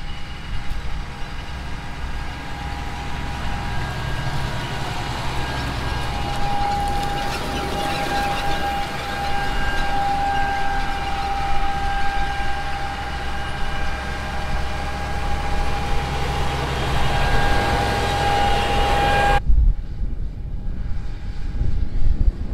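Steady motor hum with a high, slightly wavering whine over a low rumble. About nineteen seconds in, the whine cuts off abruptly, leaving a duller low rumble.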